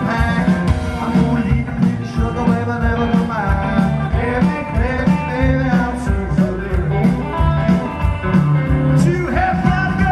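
Live rockabilly band playing with a sung lead vocal: hollow-body electric guitar through a Fender amp and upright double bass over a steady beat.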